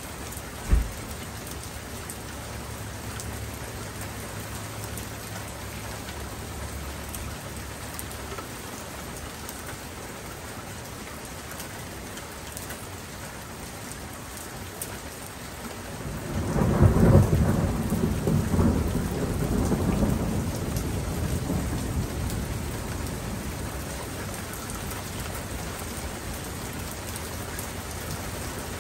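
Steady rain falling, with a rumble of thunder beginning about sixteen seconds in that peaks within a second and rolls off over several seconds. A brief low thump sounds just under a second in.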